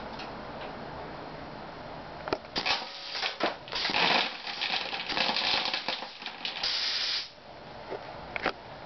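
Homemade compressor-fed full-auto BB gun firing in bursts: compressed air hissing out with a rapid rattle of BBs hitting the cardboard target. It starts about two seconds in and cuts off suddenly a little after seven seconds.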